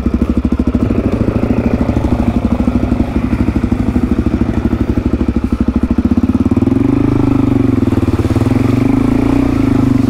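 Single-cylinder four-stroke dirt bike engine being ridden at low revs over a rocky track, a fast pulsing thump, settling into a steadier, slightly higher note about six seconds in.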